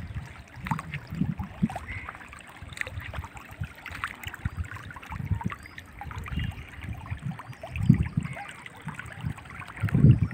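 Wind buffeting the microphone in irregular low gusts, over water trickling from a garden hose onto a freshly cast concrete roof slab being cured.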